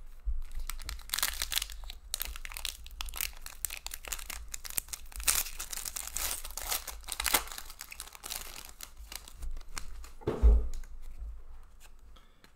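Foil wrapper of a hockey card pack being torn open and crinkled by hand, a dense crackling that goes on for several seconds, followed by the cards being handled, with a soft thump about ten seconds in.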